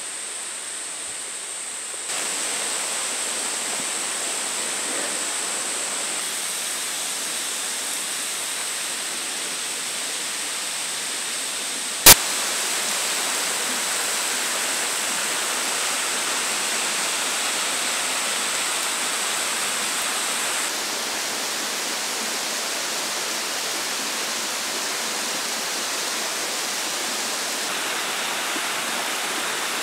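Steady rushing of a creek and waterfall, made up of several joined clips whose level steps up or down at each join. A single sharp click comes about twelve seconds in, and a thin high steady tone over the water stops about two-thirds of the way through.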